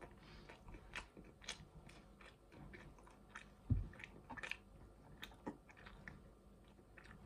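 A person chewing a mouthful of cheese and tomato pizza: faint, irregular soft clicks and smacks of the mouth working, with one low thump about halfway.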